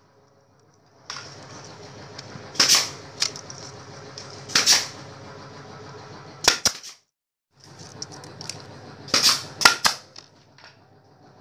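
Pneumatic nail gun firing brads into the joints of a rattan furniture frame: about five sharp shots a second or two apart, some closely doubled, over a steady background noise.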